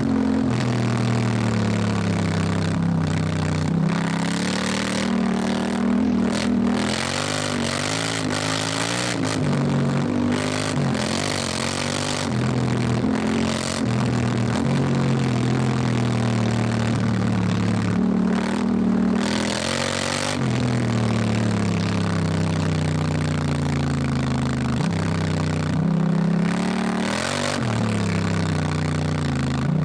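Honda Africa Twin's parallel-twin engine pulling hard and backing off over and over, its pitch climbing and dropping again and again.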